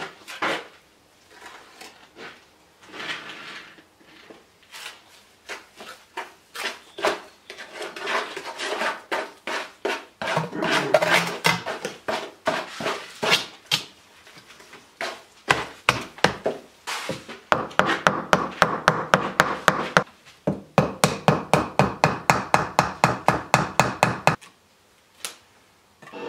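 Bricks being set and fitted on a masonry stove: a long series of knocks and scrapes of brick on brick, growing busier through the middle, with two runs of quick, even taps in the second half before a short lull near the end.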